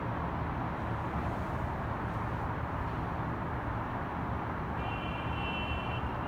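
Steady city traffic noise heard from high above a busy downtown street, a constant low rumble and hiss of cars. Near the end a short high-pitched tone sounds for about a second.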